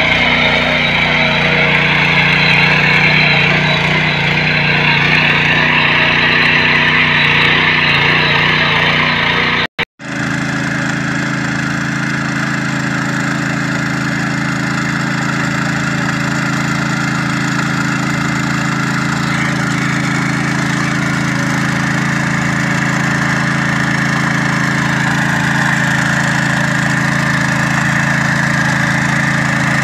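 Engine of a 7 HP petrol power weeder running steadily under load as its rotor blades churn the soil. It breaks off briefly about ten seconds in and comes back with the machine working through wet, muddy ground.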